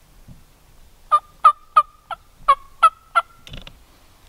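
A turkey call run as a series of seven loud wild-turkey yelps, about three a second, followed by a brief scuff.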